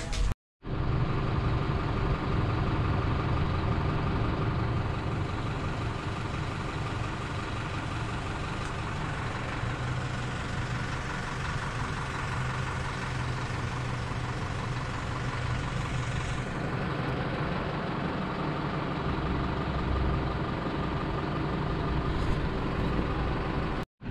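Heavy diesel engine of large mining machinery running steadily at idle.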